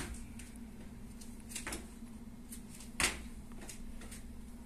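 Footfalls of a person hopping in sandals on a wooden floor: sharper landings at the start, about a second and a half in, and about three seconds in, with lighter steps between, over a steady low hum.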